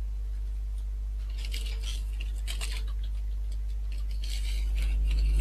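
A small plastic bag of building-brick parts being opened by hand: a few short plastic crinkles and rustles, over a steady low hum.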